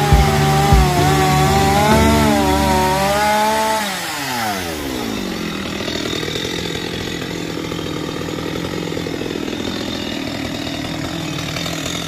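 Chainsaw engine running at high speed with its pitch wavering, with a few low thumps in the first second. About three and a half seconds in the throttle is let off, the revs fall over a second or so, and it idles steadily for the rest.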